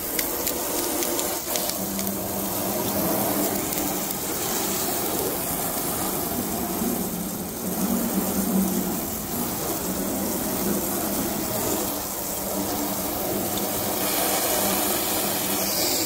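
Garden hose spraying water with a thumb pressed over its end, the jet splashing steadily onto a car's hood.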